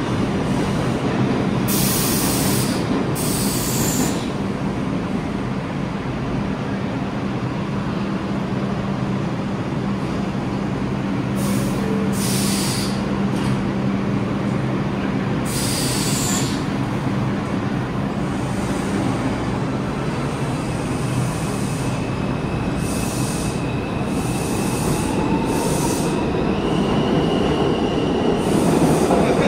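Vintage R33/R36 subway cars running along the track: a steady rumble with a low hum from the train that fades out about two-thirds of the way through. Several short, high-pitched bursts break through, and near the end a faint high tone steps up in pitch.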